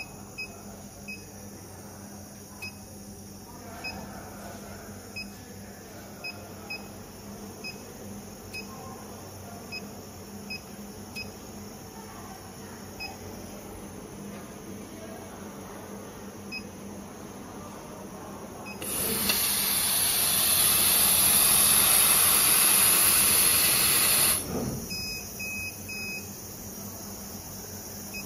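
JN-1325 CO2 laser cutting machine: a run of short, high electronic beeps at irregular intervals, then a loud, steady hiss of air for about five seconds starting about two-thirds of the way in, followed by a few more beeps.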